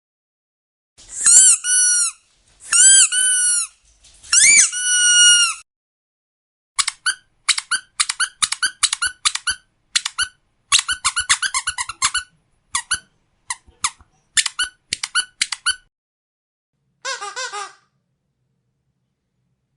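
Squeaky dog toy being squeezed: three long squeaks with a bending pitch, then a run of quick short squeaks, several a second, for about nine seconds, and one brief lower squeak near the end.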